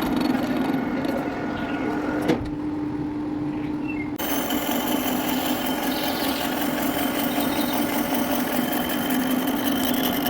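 Metal lathe running with a steady hum and a hiss above it, with a sharp click about two seconds in.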